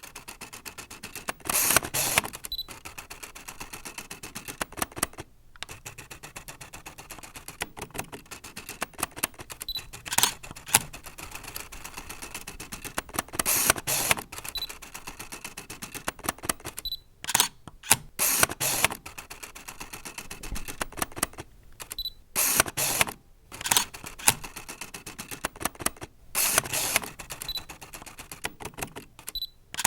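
DSLR-style camera autofocus and shutter: a steady run of small rapid mechanical clicks as the lens hunts focus, broken by louder clusters of shutter clicks about eight times, with short high beeps now and then as focus locks.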